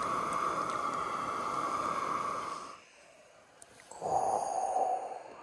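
Fish frying in a pot of bubbling oil on a Jetboil camp stove: a steady sizzling hiss that stops abruptly a little past halfway. About a second later comes a short breathy rush of air lasting about a second.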